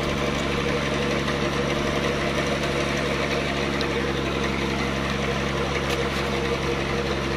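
Engine of a river sand-dredging pump running steadily at a constant speed.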